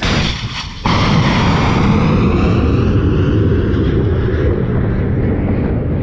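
Ship-launched missile's rocket motor burning as the missile climbs away from the launch: a loud, steady rushing noise that starts suddenly about a second in, its upper tones slowly falling in pitch.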